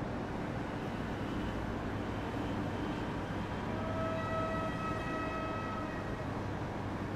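H0-scale model railway sound horn: one steady horn note held for about two seconds, starting about four seconds in, over a steady low running rumble.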